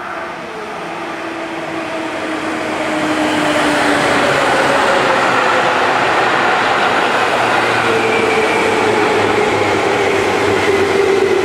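Seibu Railway electric commuter train coming in, growing louder over the first few seconds and then holding steady, its motor whine sliding slowly down in pitch as the train slows.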